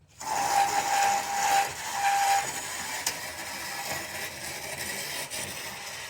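Pro-Kleen 1600 pressure washer starting up and spraying: a sudden loud hiss of the water jet with a steady whine that breaks off briefly and stops after about two seconds, then the spray hiss runs on more evenly.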